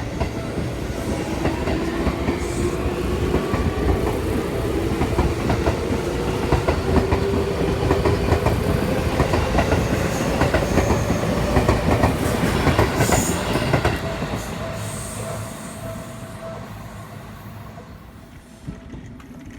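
Seibu electric train passing over a level crossing, its wheels clattering over the rail joints with a rising whine. The sound is loud for about 14 seconds, then fades as the train moves away.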